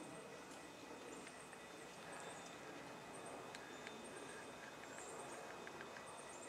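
Faint outdoor ambience: short, very high-pitched chirps repeating about once a second over a soft steady hiss, with a few faint clicks.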